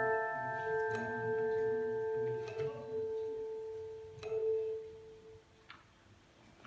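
Church handbells ringing several sustained notes, with a few fresh strikes that die away to quiet by about five seconds in.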